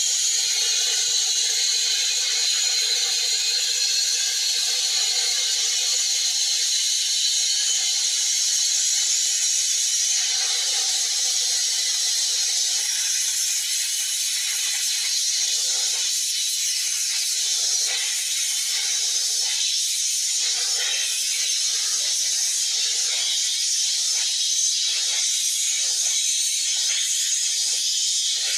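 Narrow-gauge steam tank engine Southern E762 departing with a steady loud hiss of escaping steam. From about halfway through, its exhaust beats come in slowly and then quicken as the train pulls away. It is heard through a television's speaker.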